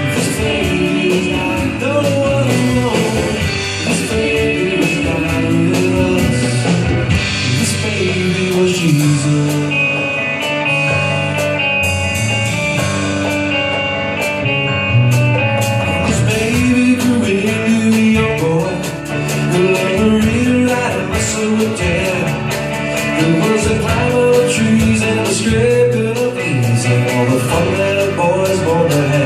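Live band playing an upbeat instrumental passage led by guitar, with drums keeping a steady beat.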